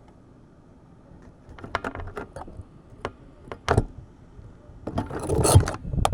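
Irregular sharp clicks and knocks with some rattling, like small hard objects being handled. They start about a second in and grow louder toward the end, with a longer rattle about five seconds in.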